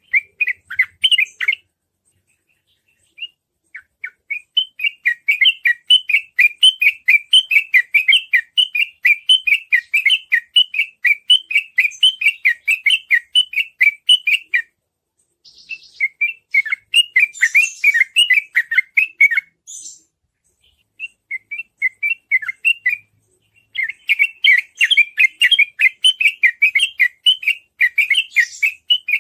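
Yellow-vented bulbul (trucukan) singing in rapid, tightly repeated 'ropel' phrases, about four to five notes a second in long runs broken by short pauses.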